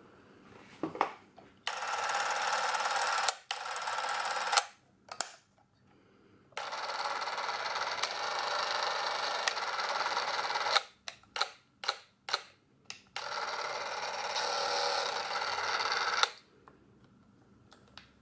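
Revue Cine S/8 Super 8 camera running: its DC film-drive motor and shutter mechanism whir in four runs of about one to four seconds. Sharp clicks from the trigger and switches come between the runs.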